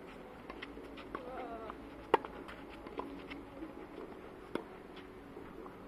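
Tennis ball struck by racket during a rally: a sharp hit about two seconds in and another about four and a half seconds in, with lighter ticks of bounces and court shoes between them.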